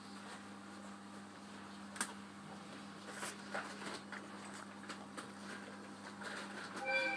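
Stopped 701-series electric train heard from inside: a steady low hum from its onboard equipment, with scattered small clicks and knocks. Near the end a brief tone of several pitches sounds.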